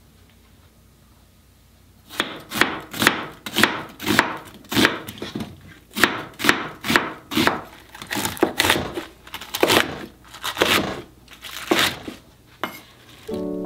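Chef's knife slicing onion and napa cabbage against a wooden cutting board, crisp cuts about two a second, starting about two seconds in.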